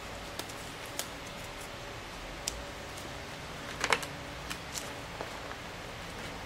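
Plastic screw cap of a gallon jug of muriatic acid being twisted open: a quick cluster of clicks about four seconds in, the loudest sound. Before and after it come a few scattered small clicks and rustles from gloved hands.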